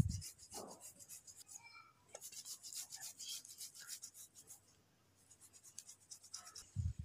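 Half-boiled potatoes being grated on a flat metal hand grater: quick, rhythmic rasping strokes, with a short pause a little past the middle and a dull thump at the very start. The crisp rasp shows the potatoes are only half-cooked and still firm inside; overboiled potatoes would not make it.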